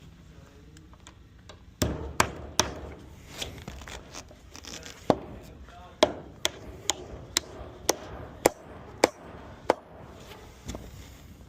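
Hammer striking wood framing: about a dozen sharp knocks at uneven intervals, beginning about two seconds in and stopping shortly before the end.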